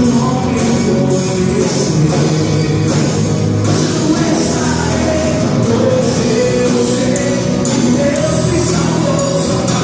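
Live gospel worship band playing with singing over a steady beat, tambourine or cymbals marking the rhythm.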